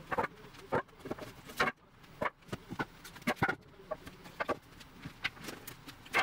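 Scrap pallet boards of ash and pine knocking and clattering against each other as they are pulled from a car's hatch and stacked on a concrete floor: a string of irregular wooden knocks.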